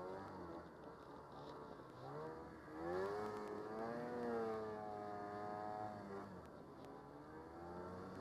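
Snowmobile engine revving under load through deep powder snow: its pitch climbs steeply about three seconds in, holds high for a few seconds, then falls back.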